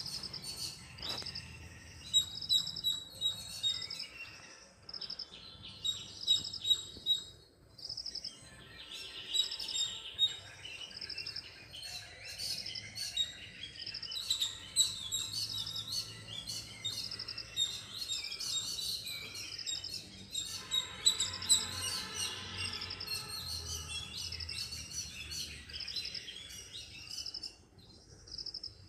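Small birds chirping and singing, with many short high calls and trills overlapping.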